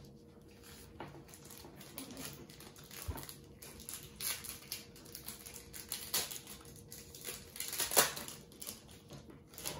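Foil baseball card pack wrapper crinkling and being torn open by hand, with irregular rustles from handling the cards and the wrapper. The loudest sharp crackle comes about eight seconds in.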